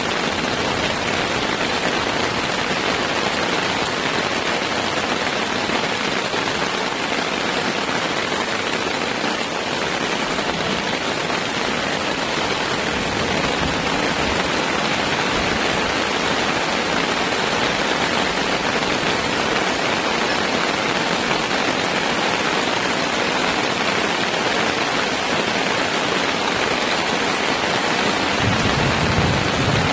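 Heavy, steady rain falling on a tarp overhead and on the wet forest floor, an even hiss throughout. A brief low rumble comes in near the end.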